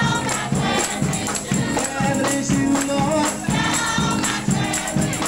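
Gospel music: a choir singing over a steady beat, with tambourine.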